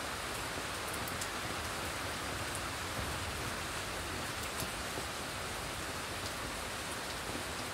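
Steady rain hissing down on brush, with scattered sharp ticks of single drops.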